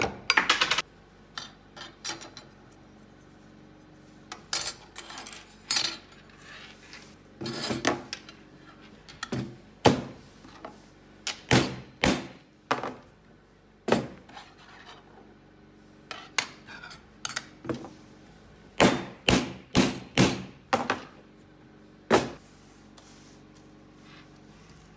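Hand hammer striking silver bar stock in irregular taps, some single and some in quick runs of three or four, each with a short metallic ring.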